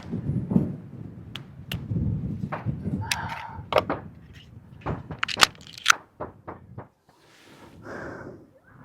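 Wind buffeting the microphone, with a scattered series of sharp clicks and knocks. The clicks are loudest about five to six seconds in, and the rumble dies away to almost nothing near the end.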